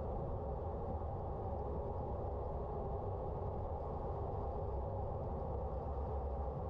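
Steady wind rush on an action camera's microphone with the rolling hum of a road bike's tyres on asphalt while riding.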